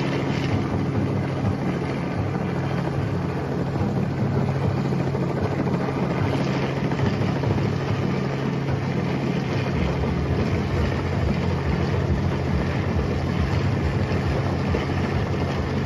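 Helicopter overhead, its rotor chop and engine drone running steadily.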